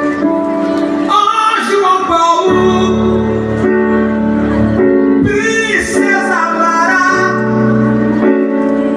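Live gospel worship music: sung phrases over sustained chords and a bass line.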